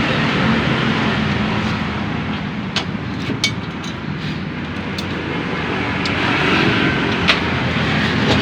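Steady engine hum of passing road traffic, with a few light sharp clicks about three, five and seven seconds in.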